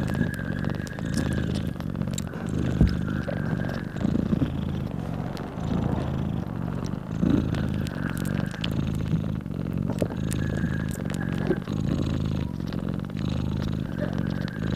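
Mother cat purring loudly and steadily as she nurses her newborn kittens.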